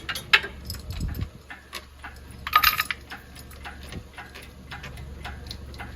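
Irregular metallic clicks and clinks of the lifting chain and hoist hardware as the engine is raised out of the truck, with a louder clattering scrape about two and a half seconds in, over a low steady hum.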